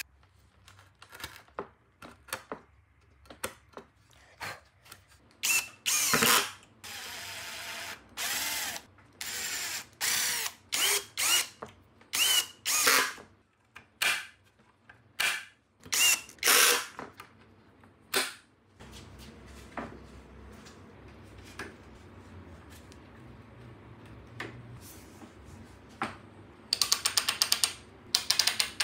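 Hand chisel paring a hinge mortise in pine: a series of short, sharp scraping strokes, some with a squeak. Later a low, steady hum runs for several seconds. Near the end comes a fast run of clicks as a ratcheting bar clamp is squeezed tight.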